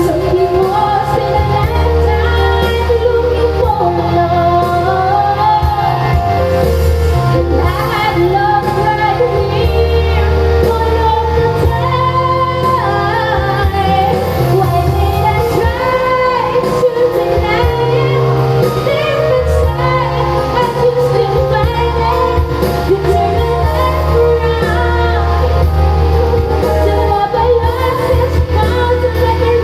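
A song with a woman singing the melody over a steady band accompaniment with bass.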